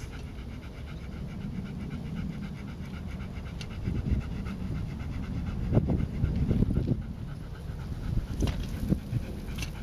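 Greater Swiss Mountain Dog panting steadily, with a few short knocks about six seconds in and again near the end.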